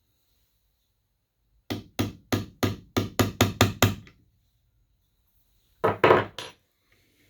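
Hammer tapping a brass punch against a steel watch-bracelet clasp hook held in a vise: a quick run of about nine light blows, about four a second, then three more near the end. The blows are meant to bend the hook down and tighten the clasp, which keeps popping open.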